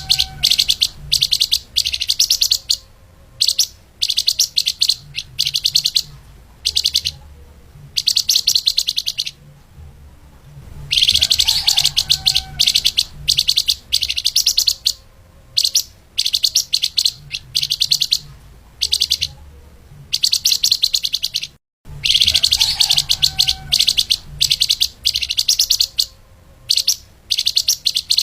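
Flamboyan (lemahan) songbird singing its fast, tightly packed chirping song in repeated bursts of about a second each, separated by short pauses. The sound cuts out for an instant about two-thirds of the way through, as at a splice in a looped recording.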